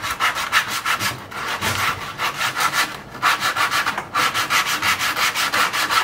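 Sandpaper rubbed by hand over the curved end of a stained timber board: quick back-and-forth strokes, about five a second, with a few short pauses. It is the hand-finishing stage that softens a curve shaped with a power sander.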